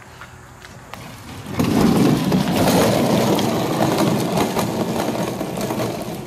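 Plastic wheels of a toy roller-coaster car rolling down its plastic track and on across asphalt, starting suddenly about a second and a half in with a loud rumble that slowly fades as the car coasts away.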